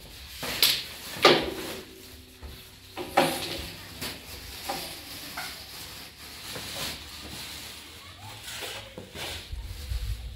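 Large plastic bag rustling and crinkling as it is rummaged through, with a few sharp knocks from the hard parts inside it, the loudest near the start.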